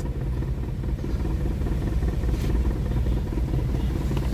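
Steady low rumble of a vehicle's engine and road noise heard from inside the cab while driving, with a faint click about two and a half seconds in.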